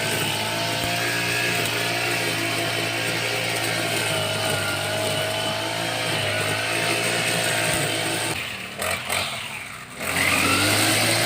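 Small petrol engine of a carried grass cutter running at high throttle while cutting grass. About eight seconds in the engine speed sags and drops off, then it revs back up about ten seconds in.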